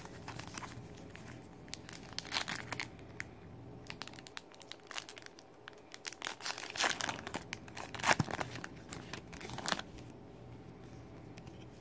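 A wrapper on a pack of baseball trading cards being torn open and crinkled, in irregular bursts of crackling, heaviest in the second half.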